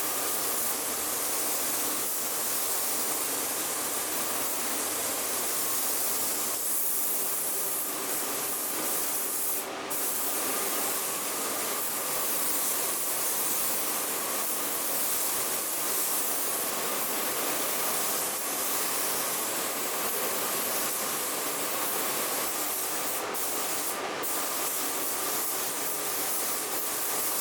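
Compressed-air paint spray gun hissing steadily, with a brief break about ten seconds in.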